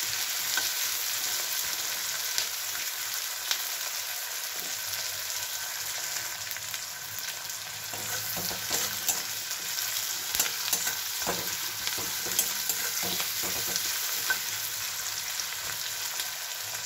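Sliced onions sizzling as they fry in oil in a metal kadai, with a spatula scraping and knocking against the pan now and then as they are stirred.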